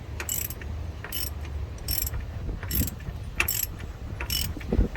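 A ratchet wrench clicking in repeated short strokes, about one a second, as the harmonic balancer bolt is tightened down toward its 156 foot-pound torque.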